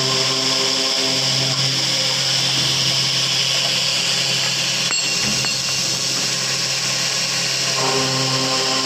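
Circular saw machine running with a steady hum and high-pitched whine. The hum's upper tones fade from about a second in and return near the end, with a brief click about five seconds in.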